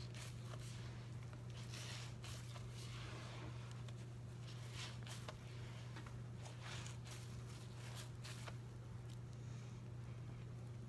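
A sponge being squeezed and kneaded by hand in a bowl of soapy water: soft, irregular squelching and crackling of suds. A steady low hum runs underneath.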